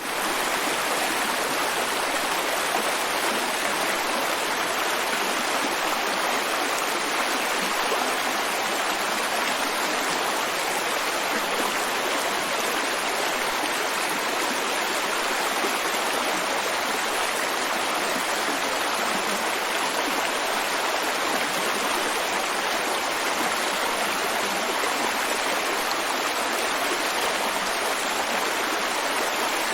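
Brook babbling: steady rushing and burbling of shallow running water over stones, with no change in level.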